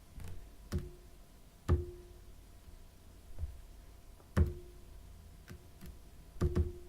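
iPhone 7's solid-state home button pressed over and over, each press answered by a short Taptic Engine 'click' vibration. There are about nine sharp clicks at uneven intervals, several with a brief low hum after them.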